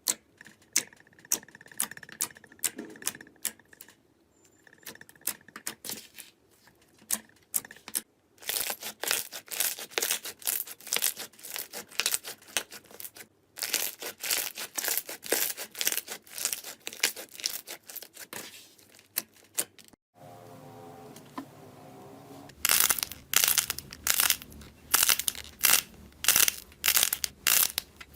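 Slime being squished and pressed: dense runs of sticky clicking and crackling, in several short clips that start and stop abruptly. Partway through, one clip carries a brief pitched squeak under the crackling.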